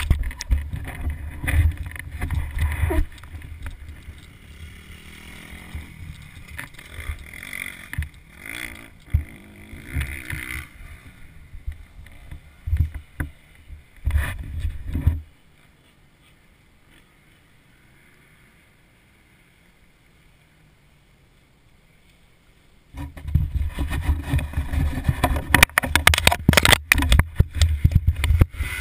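Muffled low rumble and knocking picked up by a camera mounted on the front of a motocross bike. It drops to near silence about halfway through and comes back louder for the last few seconds.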